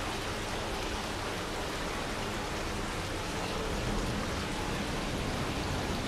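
Water from a Tenaya sphere fountain running steadily down its textured glass-reinforced-cement ball and splashing into the basin.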